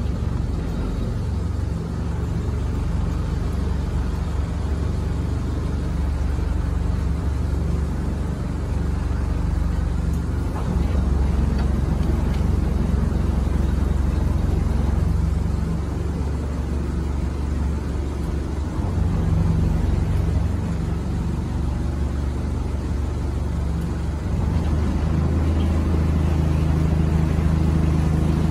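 Passenger launch boat's engine running at low speed, a steady low drone that grows louder at several points as the throttle is worked while the boat comes alongside the dock.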